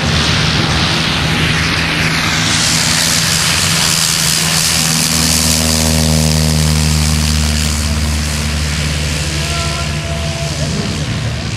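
Propeller aircraft at takeoff power, close by. From about five seconds in, a light single-engine plane's piston engine passes at full throttle on its takeoff roll, its pitch dropping slightly as it moves away down the runway.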